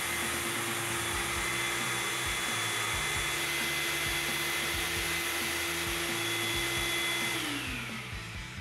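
Shop vacuum running steadily, its hose sucking up metal drilling shavings from a car hood. Its motor winds down in pitch near the end as it is switched off.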